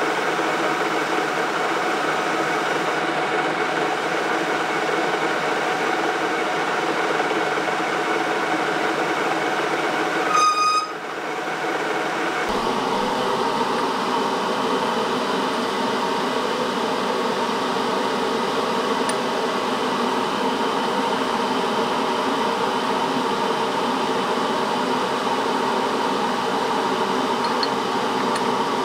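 Old engine lathe running steadily, its noise a constant hum of several steady tones while a cut is fed by hand. About ten seconds in a short high beep sounds, and the machine noise carries on slightly changed after it.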